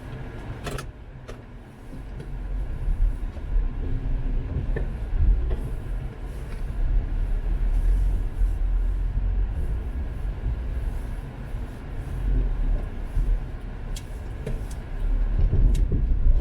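Car driving, heard from inside the cabin: a steady low rumble of engine and road noise that builds over the first few seconds, with a few faint clicks.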